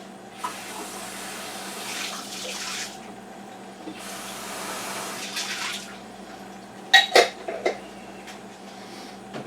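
Kitchen tap running in two bursts of about two seconds each, then three sharp knocks close together a few seconds in, the loudest sounds here.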